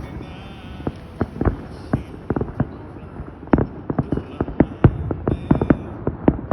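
Fireworks bursting in a rapid, irregular string of pops and bangs, several a second, over a low rumble.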